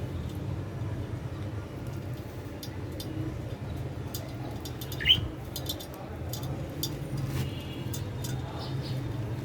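Budgerigar giving one short rising chirp about halfway through, among faint scattered clicks, over a steady low hum.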